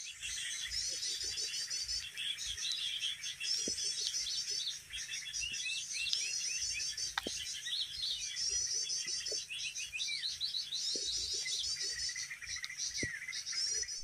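Many small birds chirping and twittering in a dense, continuous chorus of quick, high calls, with a few faint clicks.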